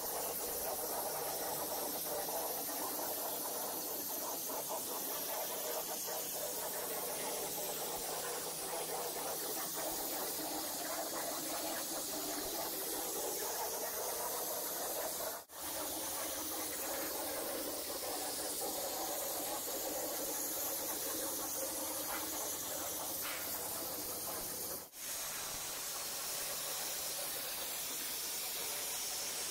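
Hypertherm Powermax85 air plasma torch cutting through 1-inch AR-400 steel plate: a steady, loud hiss of the arc and compressed air, broken by two very short gaps.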